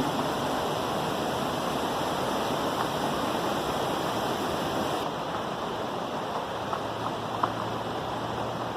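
Rushing water of a waterfall and its stream, a steady, even roar. It eases slightly about five seconds in.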